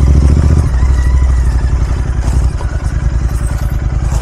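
Royal Enfield Continental GT 650's parallel-twin engine running at low revs through a Red Rooster aftermarket exhaust: a deep, even pulsing that eases down a little about two-thirds of the way through.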